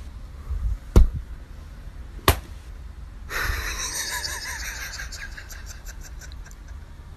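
Low indoor rumble with two sharp knocks, about one second and two seconds in, then a breathy hiss from about three seconds in.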